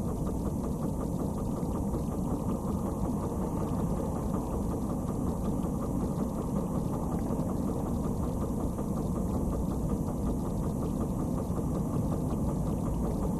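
Tow truck's engine idling steadily, a low even rumble heard from inside the cab.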